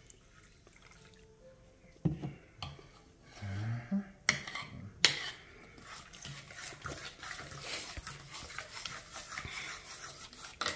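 Metal utensil mashing and stirring potatoes in a stainless steel saucepan: a few sharp knocks against the pan, then continuous scraping and clicking from about six seconds in.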